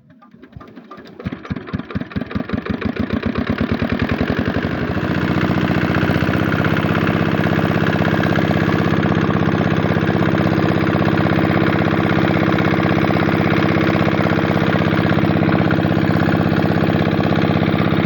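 Engine of a pond-draining water pump catching: slow separate firing beats that quicken and grow louder over the first few seconds, then running steadily at speed.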